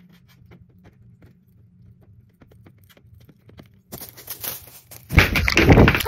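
Faint scattered ticks over a low hum, then about four seconds in a jump to loud rustling and rubbing: a phone being handled, its microphone rubbed as it is grabbed and moved.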